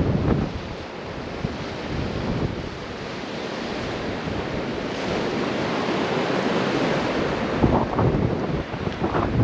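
Strong gusting wind buffeting the microphone at the start and again near the end, over a steady rushing hiss of wind.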